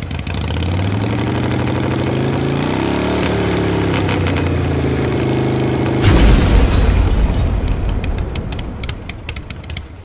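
TVS Dazz 110 scooter's single-cylinder four-stroke engine running at idle, its revs rising briefly about three seconds in. About six seconds in, a sudden louder low rush of noise takes over and then fades away.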